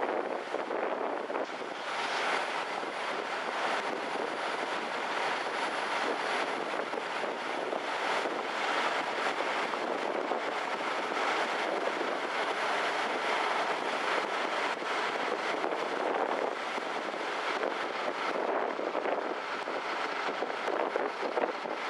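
Steady rushing noise on board the car ferry Kuniga: wind buffeting the microphone over the running noise of the ship.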